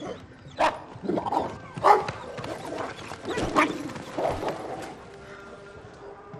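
Belgian Malinois attack dogs giving several sharp barks with snarls between them, dying away after about five seconds.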